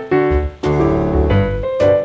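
Background music: an upbeat keyboard/piano tune with a steady beat.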